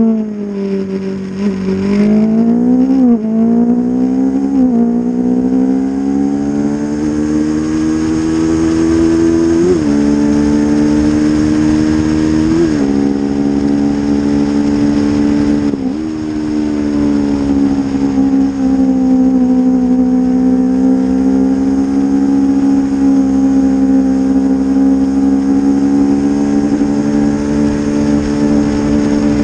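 Honda CB500 racing motorcycle's parallel-twin engine heard from onboard at full effort. The revs fall at first as it slows, then climb through the gears with five quick upshifts, each a brief sharp drop in pitch. The engine then holds steady at high revs over wind noise.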